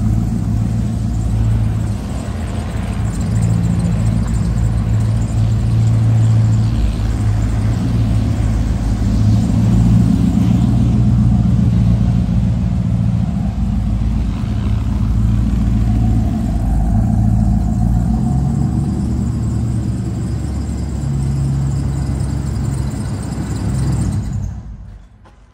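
V8 pickup truck engine running, with a low note that shifts a little in pitch as it goes; it fades out near the end.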